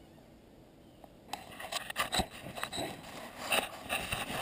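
Close handling noise: irregular scraping, rubbing and clicking against the camera and its tree-stand mount as it is turned, starting about a second in after near quiet.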